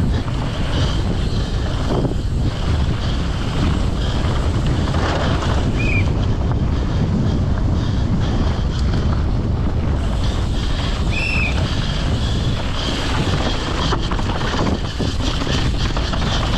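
Wind buffeting the microphone over the rumble and rattle of a downhill mountain bike at race speed, tyres running over loose, rocky dirt, with scattered knocks as it hits bumps.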